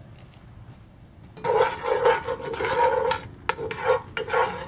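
A wooden spatula scraping and stirring around the bottom of a 12-inch deep cast-iron pan, spreading oil as the pan heats over coals. It comes in repeated rasping strokes, about three a second, starting about a second and a half in.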